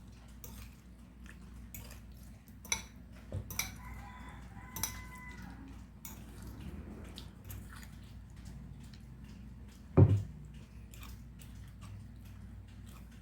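Scattered clicks and taps of a utensil against a bowl as a breadfruit salad is stirred, with one louder knock about ten seconds in. A short pitched call sounds faintly in the background around four to five seconds in.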